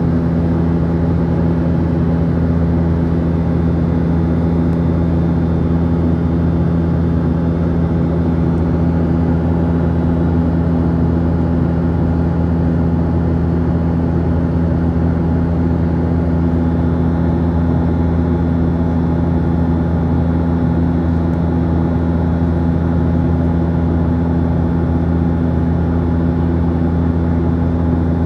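Steady cabin drone of a Boeing 737-800 in flight, heard inside the cabin. Its CFM56-7B engines and the airflow make a constant low hum, with a few steady tones over an even rush.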